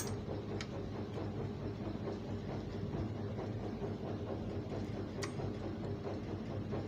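Steady low rumbling hum, with two faint sharp clicks of a metal part being handled as a bolt is fitted into an overlock sewing machine's mechanism.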